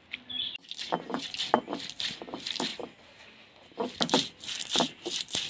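Stone roller crushing fresh green peppercorns with turmeric powder on a flat stone grinding slab (ammi): rapid, irregular cracking and scraping strokes as the berries are crushed against the stone, with a short pause around three seconds in before the rolling starts again.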